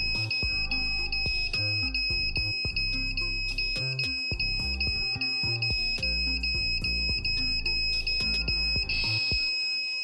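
Piezo buzzer of a home-built smoke detector alarm sounding a shrill steady tone with brief regular breaks, stopping about nine seconds in. Background music with a beat plays under it.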